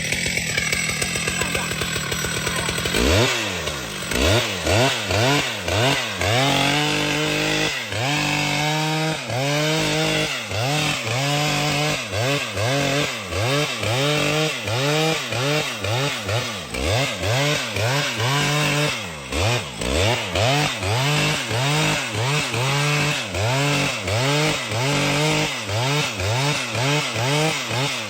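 Chainsaw engine running. From about three seconds in, its pitch rises and falls steadily about once a second as the saw works.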